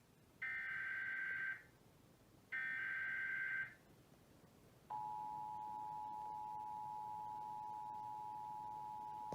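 Emergency Alert System SAME data header: two screeching bursts of digital data tones, each about a second long with a short gap between them. About five seconds in, the steady two-tone EAS attention signal starts and holds. Together they announce an incoming flash flood warning.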